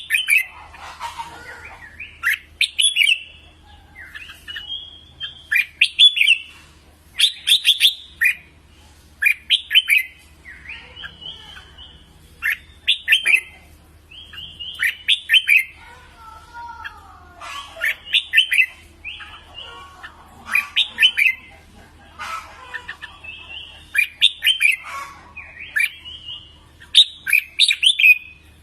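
Red-whiskered bulbul singing: short, loud phrases of quick chirpy whistled notes repeated every second or two, with softer, lower calls in between.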